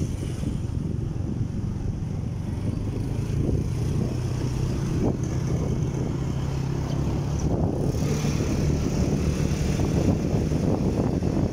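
Motorcycle engine running at a steady pace, its note stepping up a little about two-thirds of the way through, with wind noise on the microphone.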